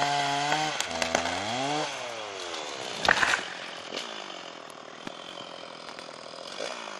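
Two-stroke chainsaw running at high revs, its pitch dipping and climbing as it works through wood, then falling away about two seconds in. A loud clattery knock comes about three seconds in, after which the saw runs on more quietly.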